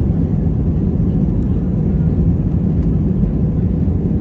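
Jet airliner taking off: its engines give a steady, deep rumble.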